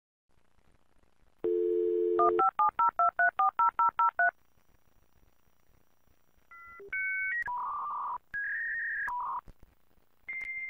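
Dial-up modem going off-hook and dialing: a telephone dial tone for about a second, then a quick string of touch-tone (DTMF) digit beeps. After a pause of about two seconds come short handshake tone pairs and warbling data tones, and a steady high answer tone starts near the end.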